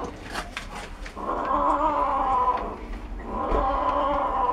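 Domestic cat growling over food it is eating, in two long, drawn-out growls: the first about a second in and the second about three seconds in. A few sharp clicks come before the first growl.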